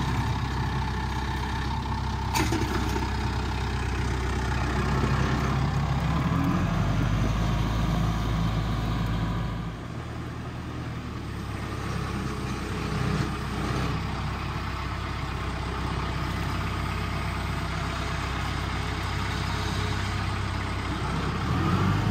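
Kubota tractor's diesel engine running while it carries a heavy log on its front-loader forks. Its pitch shifts a few times, and it drops quieter about ten seconds in and picks up again near the end.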